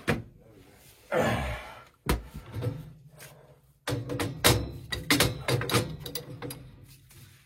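Metal clunks and knocks of a wrench being fitted and worked on a boiler's gas valve and its piping, with a cluster of sharp knocks about four to six seconds in.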